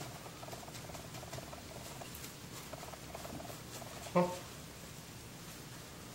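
Paper napkin rubbing over a C2 clearomizer's 510 connection and heater coil as they are wiped clean: a faint, quick, rough scrubbing. About four seconds in, a brief low hum is the loudest sound.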